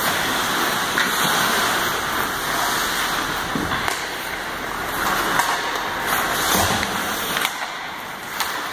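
Ice hockey skates scraping and carving on the rink ice, with a few sharp clacks.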